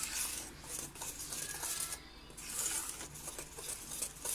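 Metal spoon stirring flour into a wet batter in a stainless steel bowl: soft, irregular scraping and light clinking against the bowl, with a short pause about two seconds in.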